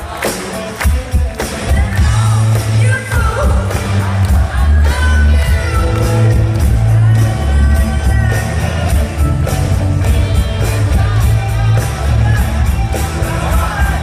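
Live pop-rock band playing at full volume through a concert PA in a large hall, with a lead singer, drums and a heavy bass line. The full band comes in about a second and a half after a few drum hits.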